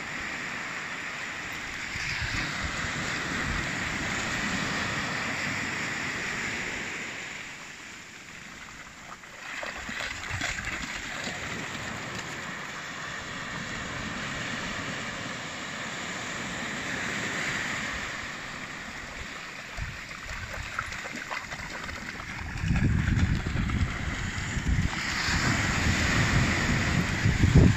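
Surf breaking and washing up a sandy beach, a steady hiss that swells and fades in slow surges. A louder low rumble comes in for the last few seconds.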